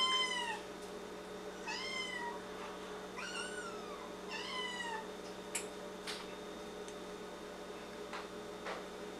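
A cat meowing four times in the first five seconds, each meow short and rising then falling in pitch, followed by a few faint clicks over a steady hum.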